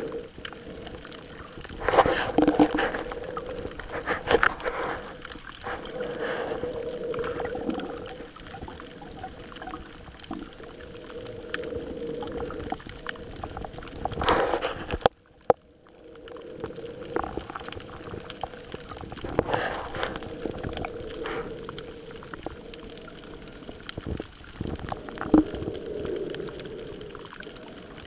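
Muffled underwater noise through a camera's microphone: water swishing and gurgling against the camera in several louder surges over a steady low hum, with a brief dropout about halfway.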